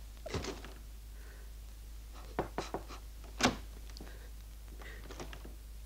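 A few scattered knocks and clicks in a quiet room, three close together a little before the middle and the loudest at about three and a half seconds, over a steady low hum.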